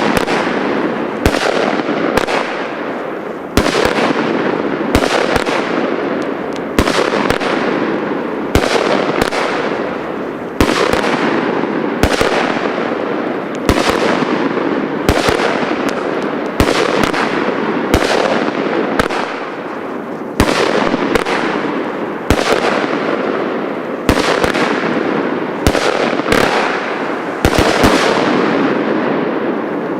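Weco 'Godzilla' consumer firework going off shot after shot: sharp bangs about once a second, each trailing off in a fading crackling hiss.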